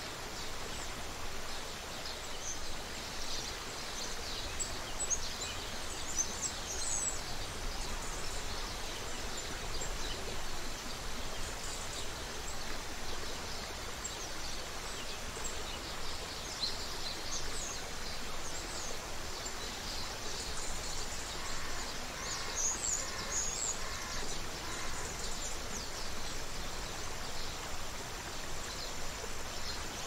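Creek water running steadily, with small birds chirping and twittering in scattered high bursts above it. A few lower, evenly repeated bird notes come in about two-thirds of the way through.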